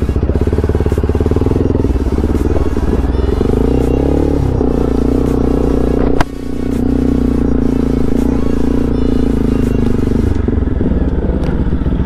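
Motorcycle engine running steadily as the bike rides a dirt track, with a brief shift in engine pitch about four seconds in and a single sharp click about six seconds in.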